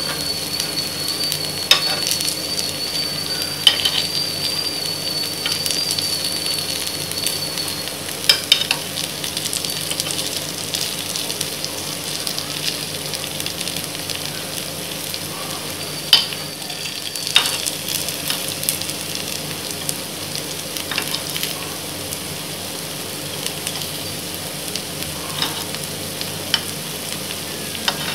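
Kuzhi paniyaram batter frying in oil in the cups of a paniyaram pan: steady sizzling. A metal spoon clicks against the pan now and then as the balls are turned.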